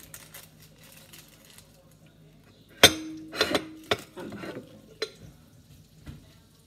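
Quiet handling, then a sharp clank of metal cookware about three seconds in that rings briefly, followed by a few lighter knocks and clinks.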